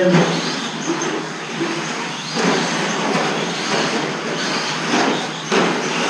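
Electric 1/10-scale 2WD short-course RC trucks racing on a dirt track: a steady rush of running gear and tyres on dirt, with a thin high motor whine over it.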